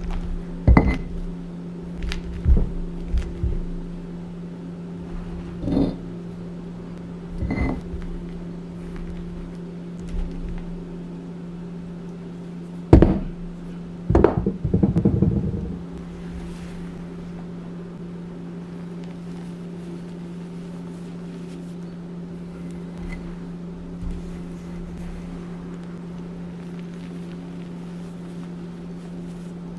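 Stone pestle knocking and crushing a block of gym chalk in a stone mortar: a few sharp crunching knocks in the first half, the loudest about thirteen seconds in, then a short rough grinding crunch. Under it runs a steady low hum, and in the second half only faint sounds remain.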